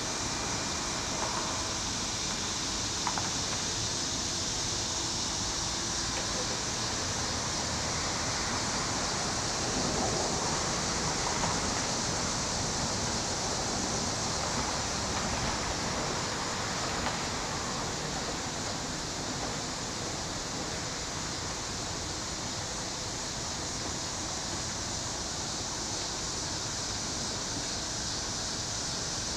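Steady outdoor background hiss, strongest high up, with no distinct event and a slight swell in level about ten seconds in.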